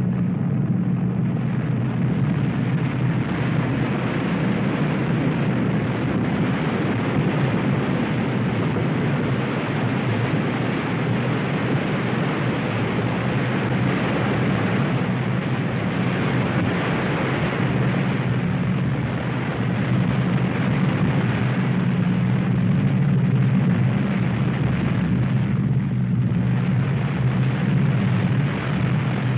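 A continuous deep rumbling roar that runs unbroken, with no separate impacts.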